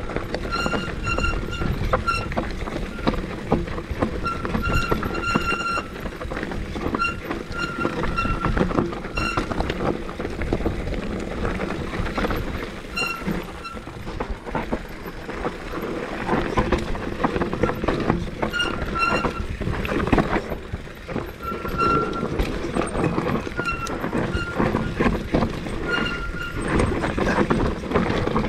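Mountain bike descending a rocky, gravelly trail: the tyres and frame rattle and knock over rocks under a steady rumble of riding noise. The disc brakes squeal in short high-pitched bursts again and again as the rider brakes.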